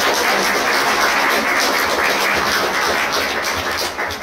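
Small audience applauding, a dense steady clapping that begins to die down near the end.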